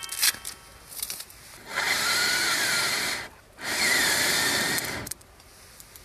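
A click, then two steady hisses of about a second and a half each with a short pause between, made while a wood fire is being kindled in a fire pit.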